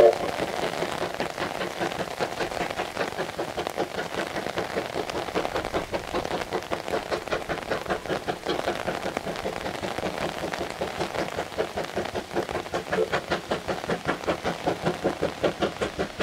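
Steam locomotive C12 66, a tank engine, working hard up a grade: a quick, even run of exhaust beats from its chimney that grows louder as it approaches. A short sharp sound comes right at the start.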